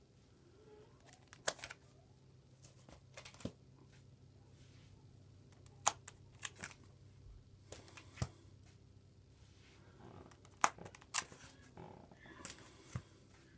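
Scattered sharp clicks and taps with short bursts of light rustling, over a faint steady low hum in a quiet small room, like objects being handled. The loudest click comes about three-quarters of the way through, and a longer rustle follows near the end.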